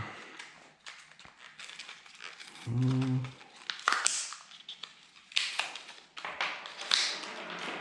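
Small plastic parts being handled: a scatter of clicks, taps and rustling, with a brief low hum about three seconds in.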